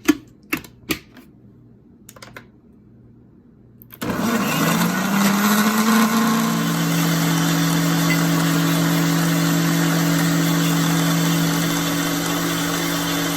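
A few light knocks, then a kitchen blender switches on about four seconds in and runs steadily, pureeing papaya until creamy.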